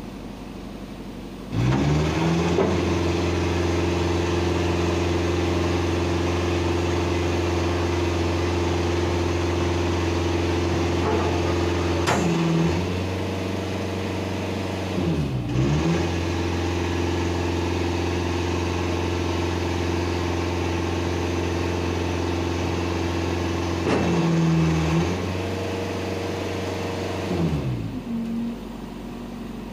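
Scania truck's diesel engine revved up from idle and held at steady high revs while it works the side loader's hydraulic crane. The revs dip and recover about halfway through, then drop back to idle near the end.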